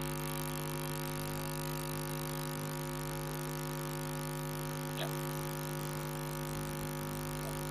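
Steady electrical mains hum with many overtones, unchanging throughout, and a faint tick about five seconds in.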